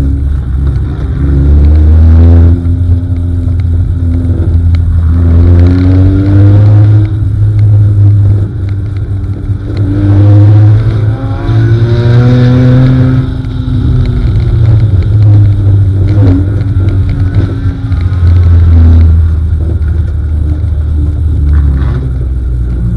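Four-cylinder race car engine heard from inside the cockpit, running hard and revving up and easing off again and again with the throttle as the car laps a dirt oval.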